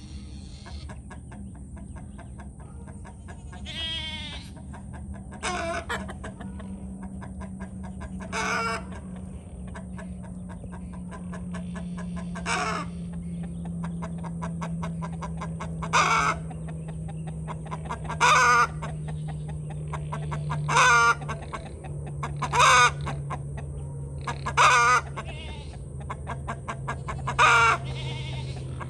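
Chickens calling in short clucks, about one every two to three seconds, louder in the second half. A steady low hum, slowly dropping in pitch, runs underneath.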